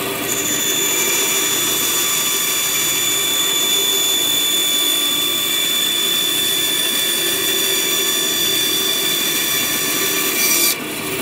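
Bandsaw running and slowly cutting through plywood along a straight line. A steady high whine sits over the motor and blade noise and cuts off suddenly near the end.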